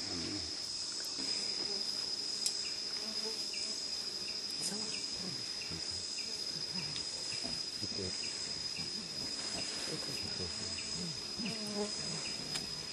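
Tropical rainforest insects: a steady high-pitched insect drone, with a short chirp repeating about twice a second through most of it, over faint low rustling.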